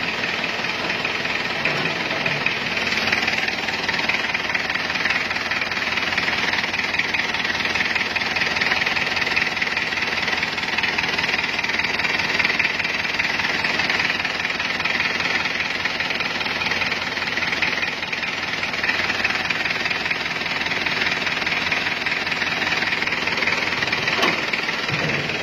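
Isuzu Panther 2.3-litre diesel engine idling with a steady, even clatter.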